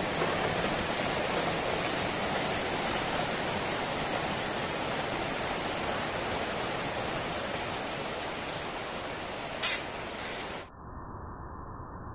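Steady hiss with a single sharp click a little before the end. The hiss then turns quieter and duller.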